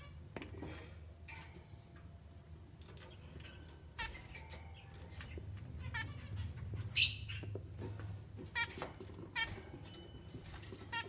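A group of small cage birds chirping in an aviary, many short calls overlapping from several birds, with one louder call about seven seconds in, over a low steady hum.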